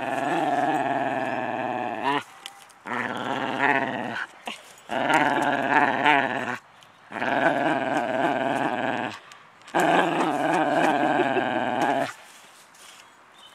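Whippet growling in play while tugging on a stick: five long, deep growls of one and a half to two seconds each with short breaks between, stopping about twelve seconds in.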